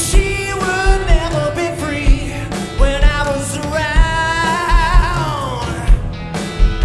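A male vocalist singing a 1960s-style soul-pop song over a band with a steady drum beat, holding long notes with vibrato.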